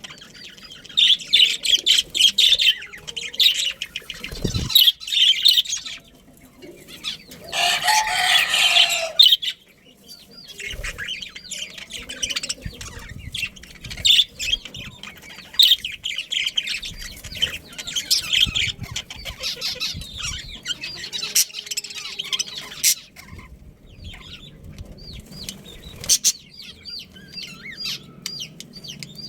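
A group of budgerigars chirping and chattering in quick high twitters, with a louder rushing burst of about two seconds around eight seconds in.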